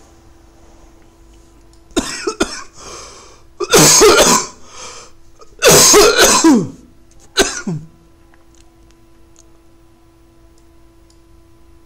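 A person coughing and clearing their throat in four bouts, starting about two seconds in and ending near eight seconds, the middle two the loudest.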